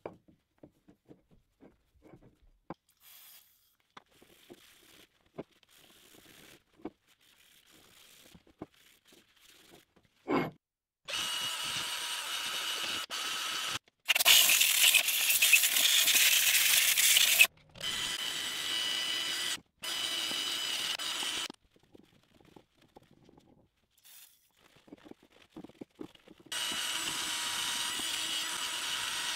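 Soft rubbing of a rag wiping a steel spindle. Then a cordless drill spinning a small wire wheel brush against the steel, run in about five bursts of a few seconds each.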